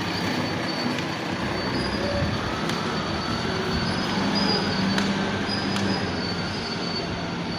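Woodworking machinery running steadily: a loud continuous mechanical noise with a faint high-pitched whine over it and a few sharp ticks.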